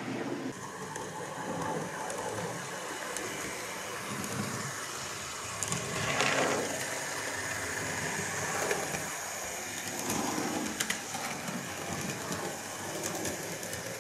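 Model GWR 56xx tank locomotive, no. 6639, running round the layout: a steady small electric motor hum with wheels clicking and rattling over the rail joints and points, loudest about six seconds in and again near ten seconds.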